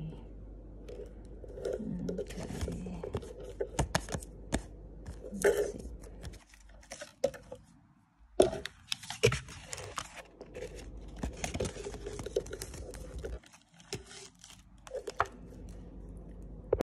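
Scratching the coating off an instant scratch-off lottery ticket: papery scraping and crackling broken by sharp clicks. It stops briefly twice and cuts off suddenly near the end.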